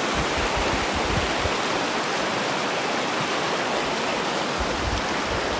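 Fast, shallow mountain river rushing steadily over a rocky, stony bed.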